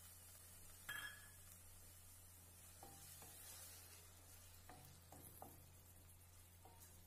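Metal spatula clinking and scraping against a stainless-steel kadai while stirring tomato paste into onion masala: one sharper clink about a second in, then several lighter clinks.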